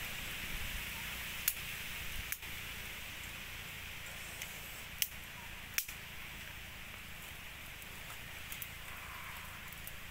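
Open wood fire burning with a steady hiss, broken by about four sharp crackles as the burning sticks pop.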